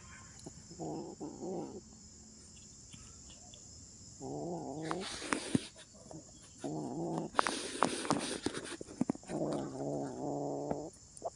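Kitten growling low over its food in four drawn-out bursts about a second long, while it chews fish out of a crumpled paper wrapper. Sharp clicks and crinkling of the paper come between the growls.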